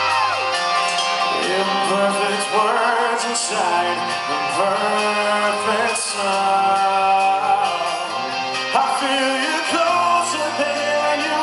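Live rock band playing a song: a male lead vocal sung over electric guitars and drums.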